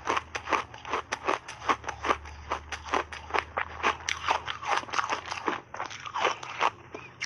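Mouthful of frozen mixed-fruit ice being chewed close to a lapel microphone: rapid, crisp crunches about three or four a second.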